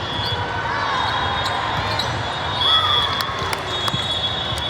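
Indoor volleyball play on a gym court: athletic shoes squeak on the floor and the ball gives several sharp knocks as it is hit, over a murmur of voices.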